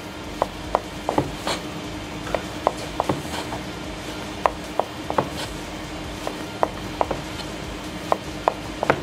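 Chef's knife slicing a rolled log of fresh pasta dough into 3–4 mm tagliatelle rounds, tapping down onto a white plastic chopping board about twice a second in an uneven rhythm.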